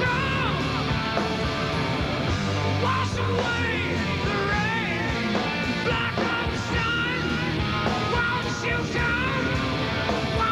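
Grunge band playing live: distorted electric guitars, bass and drums, with a man singing over them.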